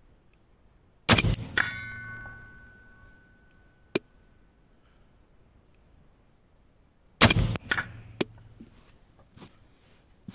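A rifle fired twice, about six seconds apart. The first shot is followed by a clear metallic ringing ding that fades over about two seconds; a few small clicks follow the shots.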